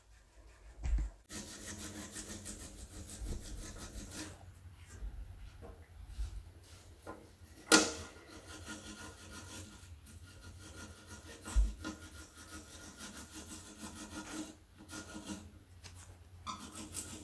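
Rapid, continuous scraping and rubbing on the tractor's battery connections as corrosion is scrubbed off to get a good contact. There is a sharp knock about eight seconds in.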